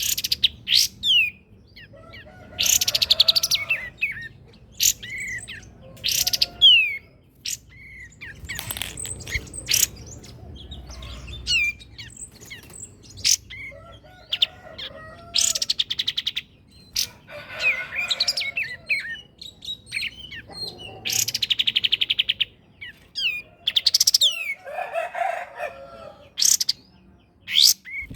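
Songbird singing a loud, varied song in separate phrases a second or two apart: rapid buzzy trills, quick whistled up-and-down sweeps, and a lower warbling passage near the end.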